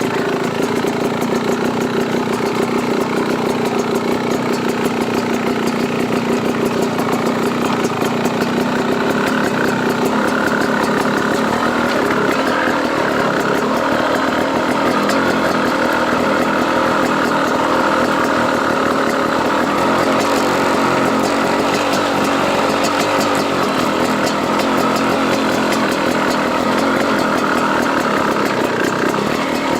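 Enduro dirt bike engine idling steadily, with its pitch holding level throughout.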